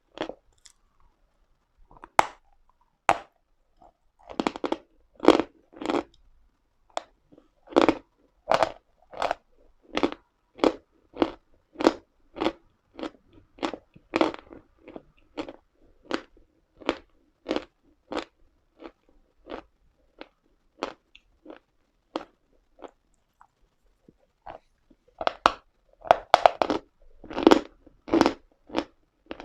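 Close-up crunching of a person chewing pieces of Uslada chalk, in a steady run of sharp crunches about one to two a second, with short pauses. The crunches come faster and louder near the end.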